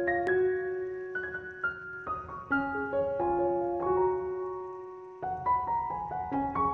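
Background music: a gentle piano melody of single sustained notes, with a brief drop in level about five seconds in.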